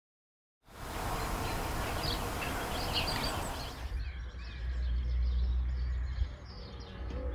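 Outdoor ambience of small birds chirping over a steady hiss. About halfway through it changes to a low rumble with fainter chirps.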